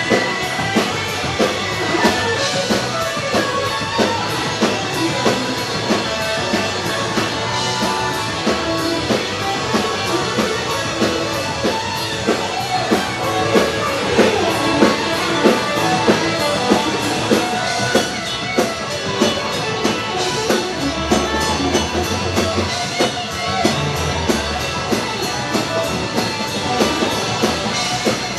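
Live rock band playing: electric guitars, bass guitar and a drum kit driving a steady beat.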